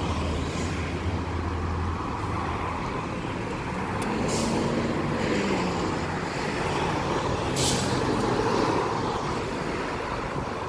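Road traffic at a city intersection: cars and buses passing with engine and tyre noise. Two short high hisses sound about four and seven and a half seconds in.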